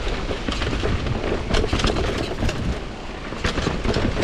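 Downhill mountain bike descending a rough trail at speed: constant low wind buffeting on the action camera's microphone, with tyres crunching over dirt and rock and repeated clatters from the chain and suspension over bumps.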